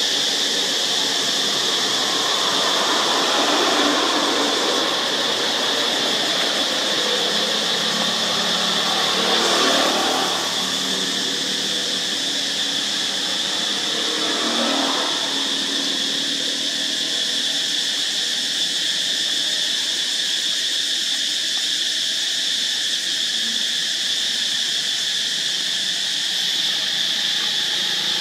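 Steady high-pitched drone of insects in the forest. A lower sound swells and fades briefly about ten seconds in and again around fifteen seconds.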